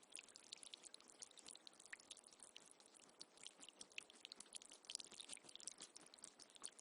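Faint trickling water: a dense, irregular patter of small splashes and drips over a steady hiss.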